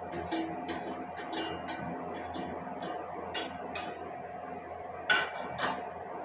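Steel spatula scraping and tapping in a metal kadai as macaroni is stirred, with light clinks of a steel plate being handled. About five seconds in there is a sharp metallic clank as the steel plate is set down on the counter, then a lighter clink just after. A steady faint hum runs underneath.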